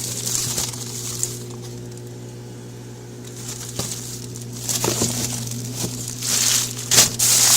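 Food packages and containers being handled and rummaged through in a fridge: crinkling rustles and a few light knocks, growing louder near the end, over a steady low hum.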